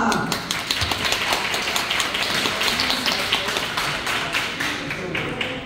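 A small audience applauding: many quick claps that thin out and fade away near the end.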